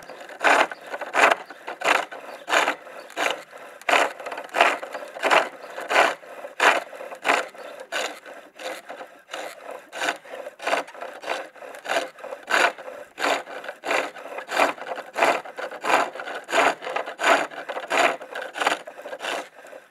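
Gouge cutting a dry ash handle on a pole lathe. A rhythmic scraping cut comes about every two-thirds of a second, one cut with each push of the treadle.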